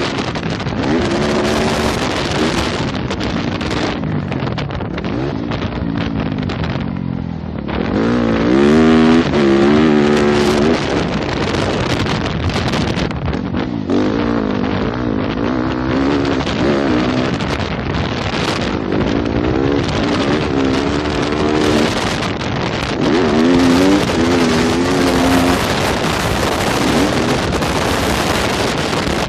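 Yamaha YZ250F four-stroke single-cylinder motocross bike engine being ridden hard, repeatedly revving up and easing off, loudest about eight to ten seconds in. A steady rush of noise runs under the engine throughout.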